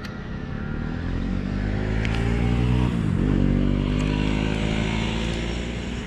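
A motor vehicle's engine passing by: it grows louder as it approaches, its pitch drops as it goes past about three seconds in, and it fades as it moves away.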